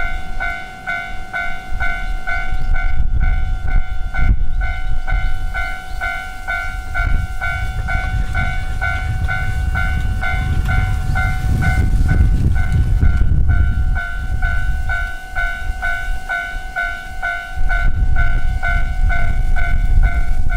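Japanese railway level-crossing alarm starting up and ringing its electronic bell in an even, rapid run of dings, the signal that a train is approaching. Wind rumbles heavily on the microphone underneath.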